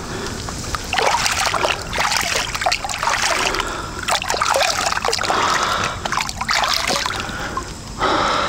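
Water splashing and trickling in irregular surges, about one a second.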